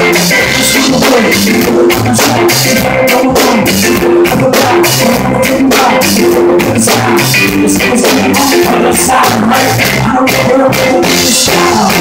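Live rock band playing loudly: electric guitar, bass guitar and a Pearl drum kit.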